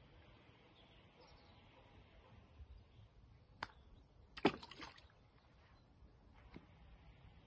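A golf club chips a ball off the lawn with a sharp click. About a second later comes a louder knock and a short clatter as the ball lands at the plastic bucket of water.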